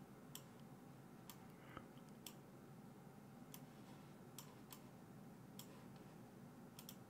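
Near silence: room tone with about ten faint, irregularly spaced computer mouse clicks.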